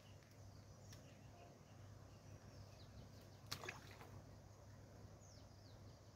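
Near silence: faint outdoor background with a couple of sharp clicks, the clearest about three and a half seconds in, and a few faint high chirps about five seconds in.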